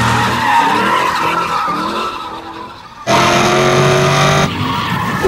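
Razor Crazy Cart drifting on concrete: tyres skidding and squealing over a running motor. About three seconds in, the sound cuts suddenly to a louder, steady motor tone.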